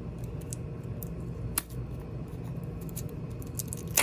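Knife prying coconut meat away from the hard shell: light scraping and small clicks, with a sharp click about a second and a half in and a louder one at the end. A steady low hum runs underneath.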